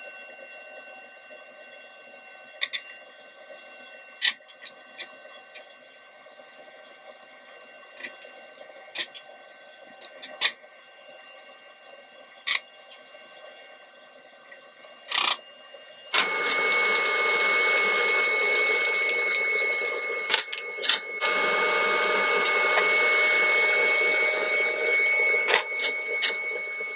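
Scattered clicks and taps of a utensil against a plate and a frying pan while shallots are scraped into the pan and stirred. About sixteen seconds in, a loud steady hiss with a steady whine starts and runs on, dipping briefly about five seconds later.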